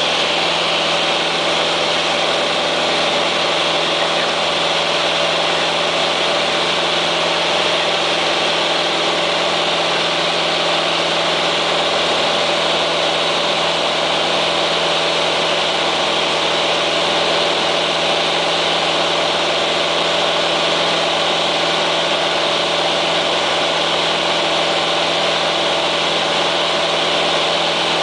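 Single-engine light aircraft's four-cylinder Lycoming O-320 engine and propeller running at steady climb power, heard inside the cabin of a Grumman AA-5A Cheetah: an unchanging drone of several tones under a strong hiss.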